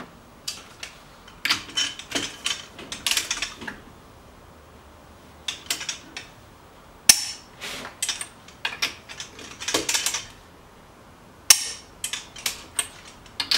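Click-type torque wrench working the lug nuts of a Corvette's rear wheel, with bursts of ratcheting clicks and a few sharp single clicks, the loudest about 7 and 11.5 seconds in, as the nuts are torqued to 100 foot-pounds.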